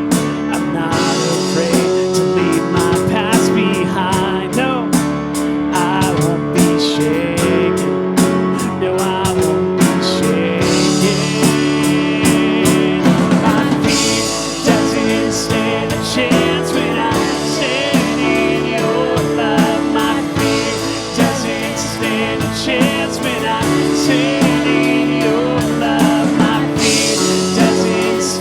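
Church worship band playing a slow congregational song, with guitar and voices singing.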